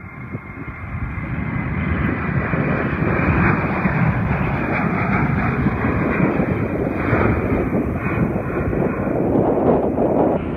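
United Boeing 737-700 jet airliner with CFM56 turbofans climbing out just after takeoff at takeoff thrust: a dense jet roar that swells over the first couple of seconds and then holds steady.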